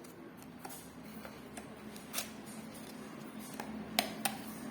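A small product box being opened and handled by hand: scattered light clicks and taps, the sharpest about four seconds in, over a steady low hum.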